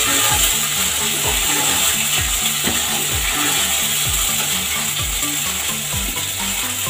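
Ginger-garlic paste sizzling steadily in hot oil in a kadhai. Background music with a steady beat plays underneath.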